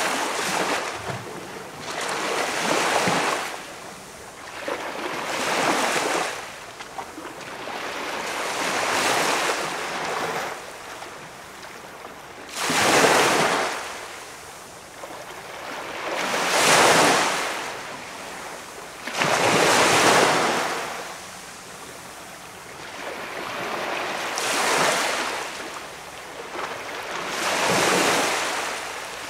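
Small waves breaking and washing up a quiet beach, one swell of surf every three or four seconds, each rising and falling away.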